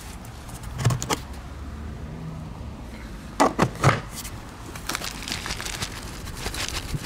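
Knocks and clicks of a homemade cat feeder, a painted can on a red pipe elbow, being handled: two clicks about a second in, three sharp knocks a little past the halfway mark, then a run of lighter clicks and rattles.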